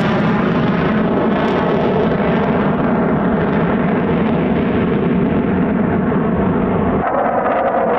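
Eurofighter Typhoon's twin EJ200 jet engines, loud and steady as the fighter pulls out of a strafing dive, with a shifting, phasing quality as it passes. The upper hiss sinks gradually, and the deep rumble cuts off abruptly about seven seconds in.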